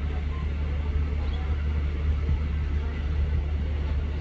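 Steady low hum and rumble of a train, heard at the open window of a railway coach.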